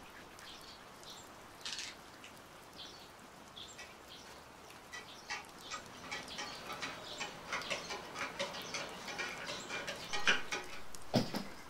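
A metal spoon stirring in a stainless steel mug, clinking against the sides in quick light taps from about five seconds in.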